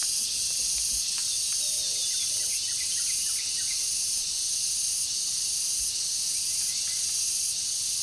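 Insects buzzing in a steady, high-pitched drone that pulses slightly, with a few faint short chirps in the first half.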